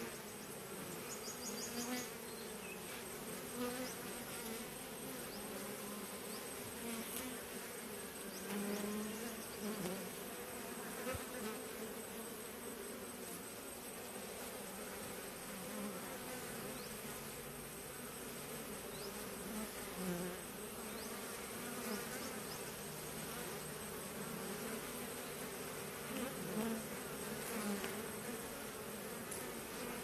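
A honey bee swarm buzzing in a steady, dense hum, with brief louder swells of buzzing every few seconds.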